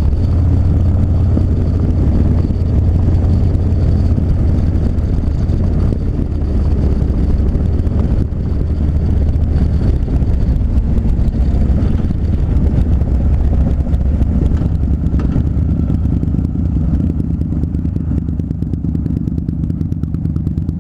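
Harley-Davidson Dyna Street Bob's air-cooled V-twin running steadily under way, a loud, deep rumble.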